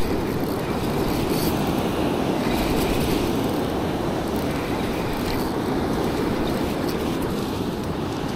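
Steady rush of wind buffeting the microphone over the wash of breaking surf, with no distinct events.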